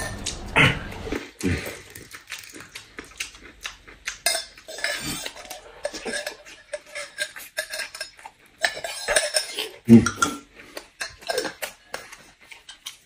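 A metal spoon clicking and clinking against a glass mug as powder is scooped in and stirred into a drink. Close-up chewing and slurping of food runs alongside.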